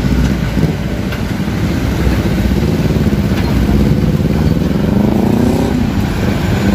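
Diesel truck engines running as trucks pass, with one engine rising in pitch about two-thirds of the way in as it accelerates.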